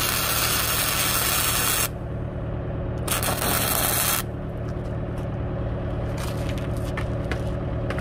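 Stick (arc) welding, tack-welding a steel bracket to temporarily fix a hydraulic cylinder: a loud crackling hiss that stops about two seconds in and starts again a second later for just over a second, then only scattered crackles. A steady low hum runs underneath.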